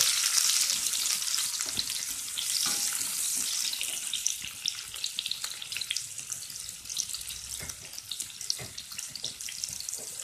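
Sliced onions frying in hot oil in a kadai, a steady sizzle that is loudest at first and settles down to a quieter sizzle with scattered pops and crackles.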